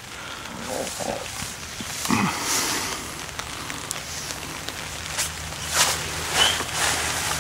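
Rain pattering on a tent's nylon rainfly, heard from inside the tent, with the fabric rustling and scattered ticks of drops as someone shifts about within it.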